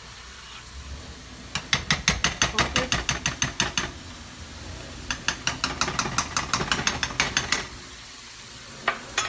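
Something being whipped by hand in a bowl, the utensil clicking against the bowl in quick, even strokes of about six or seven a second. Two runs of beating with a short pause between them.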